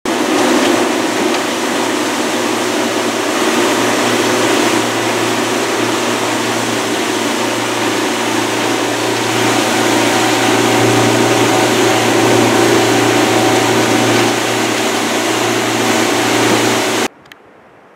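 Boat motor running steadily at speed on an aluminium skiff, with the rush of wind and churning wake water over it. It cuts off abruptly near the end.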